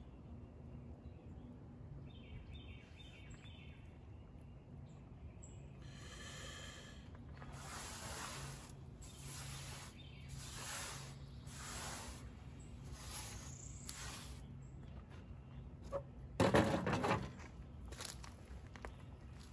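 Dry pine needles rustling and crackling in a series of handfuls as they are gathered and worked by hand into a tinder bundle. Near the end comes one louder, short knock.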